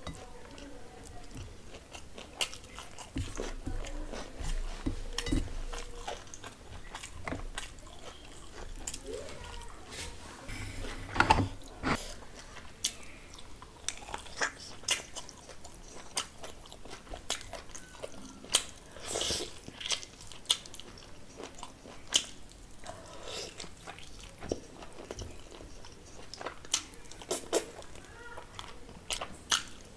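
Close-miked eating: a person chewing mouthfuls of rice and mutton curry eaten by hand, with many short smacks and clicks of the mouth, the loudest about 11 seconds in.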